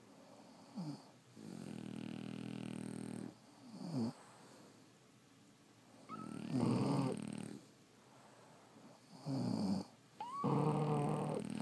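Sleeping French bulldogs snoring: about six pitched snores, each from a fraction of a second to about two seconds long, coming every few seconds. Two of the snores open with a brief rising whistle.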